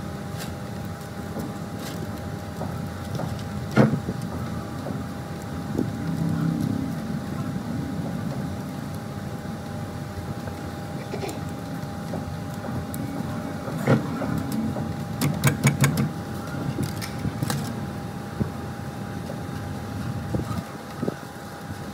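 Light clicks and taps of enamelled copper winding wire being pushed into the slots of an electric motor stator, with a quick run of ticks about two-thirds of the way in. Under them runs a steady background rumble with a faint constant whine.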